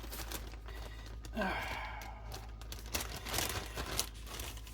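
A man sighs once, a short falling breathy voice sound about a second and a half in, amid light clicks and rustling of kitchen handling.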